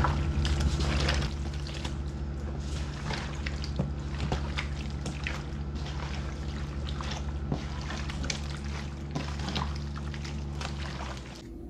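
Wet squelching and squishing of raw cubed pork being mixed by hand with salt, spices and vinegar in a plastic tub, in quick irregular squelches over a steady low hum.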